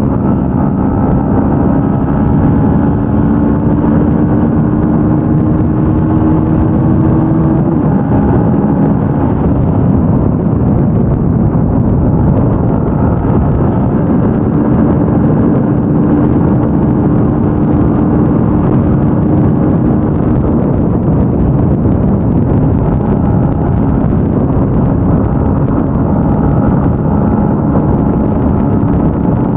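Yamaha Y15ZR (Sniper 150) motorcycle's single-cylinder four-stroke engine running at speed under a steady rush of wind. The engine tone climbs slowly, drops about eight seconds in, then holds fairly steady.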